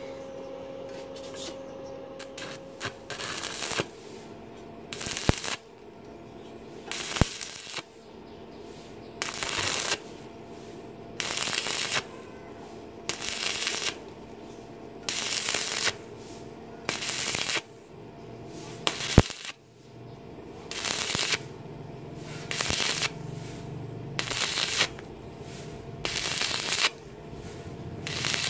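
Stick (arc) welding on thin-walled square steel tube: the arc crackles in bursts about a second long, roughly every two seconds, breaking off between them.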